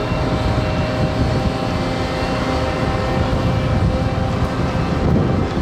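Heavy ship or dockside machinery running steadily: a constant hum of several steady tones over a low rumble.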